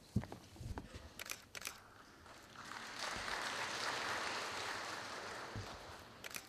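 Camera shutters clicking a few times, then a brief round of audience applause that swells and fades.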